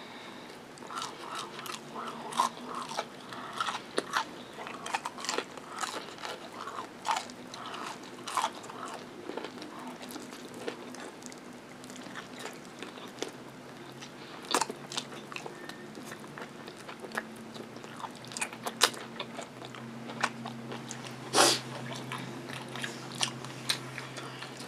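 A person biting and chewing fried chicken wing and Chinese takeout food, with irregular crunches throughout and one louder crunch near the end.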